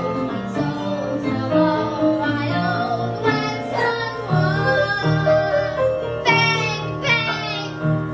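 Music with singing over instrumental accompaniment.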